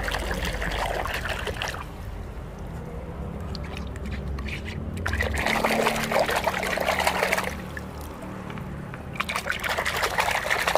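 A hand swishing and splashing water in a bucket while scrubbing mud off toy pliers. The splashing comes in three bouts: at the start, about halfway through and near the end, with quieter stirring between.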